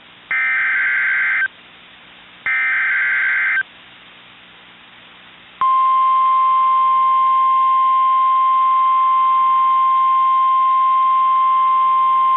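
Emergency Alert System SAME header on NOAA Weather Radio: two harsh, buzzy digital data bursts about a second long, a second apart, completing the three-burst header. After a two-second pause, the steady single-pitch 1050 Hz warning alarm tone starts about six seconds in and holds, signalling a tornado warning.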